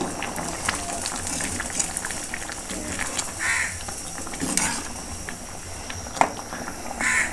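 Thick red-lentil dal boiling in a pan, bubbling and popping, while a steel ladle stirs it with small scrapes and clinks against the pan.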